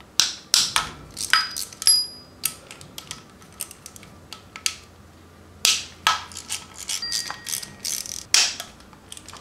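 Small ratchet clicking in short, irregular bunches as the water pump bolts are loosened, with a few sharp metallic clinks that ring briefly.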